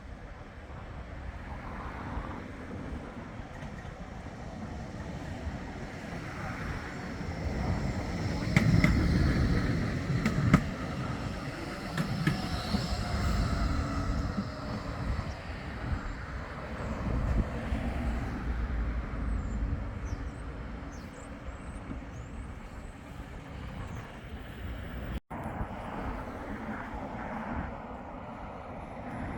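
Bombardier Flexity 2 tram running on street track, its rumble swelling to its loudest about a third of the way in, with a few sharp clicks, then fading away.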